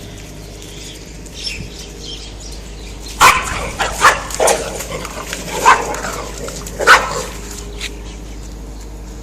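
A dog barking, about five sharp barks spaced roughly a second apart.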